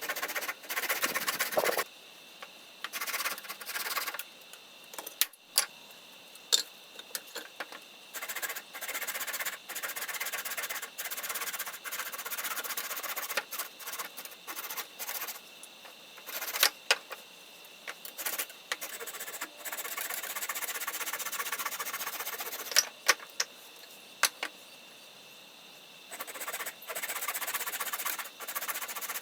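Hand saw cutting through dry branch firewood, in spells of rasping strokes a few seconds long with pauses between, and scattered knocks and clicks of wood being handled.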